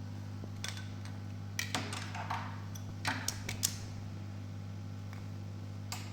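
Small hand-tool handling sounds while a COF flex is being cleaned: a few short clicks and scrapes, bunched in the first four seconds with one more near the end, over a steady electrical hum.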